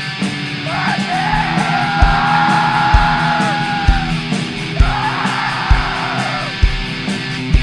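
Depressive black metal: distorted guitar chords over a slow kick-drum beat, about one stroke a second, with a harsh screamed vocal in two long drawn-out phrases.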